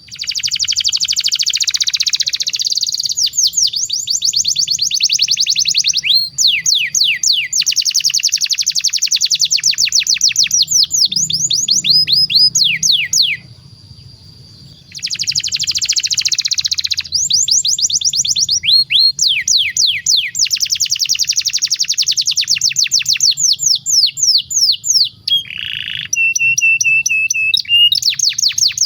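Domestic canary singing long, rapid trills: fast runs of repeated sweeping notes in extended phrases, broken by one pause of about a second and a half midway. Near the end comes a short lower buzzy note, then a steady held whistle.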